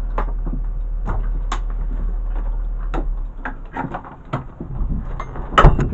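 Scattered clicks and knocks of things being handled inside a stationary rally car's cockpit, over a low hum, with one louder thump near the end.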